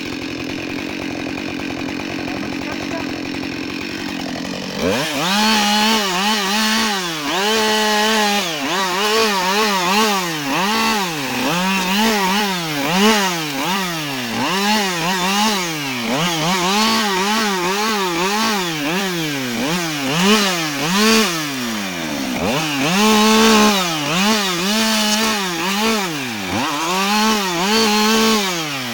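Husqvarna 572XP two-stroke chainsaw idling, then from about five seconds in revved up and down again and again, roughly once a second, as it cuts off branches along a felled tree. It drops back to idle near the end.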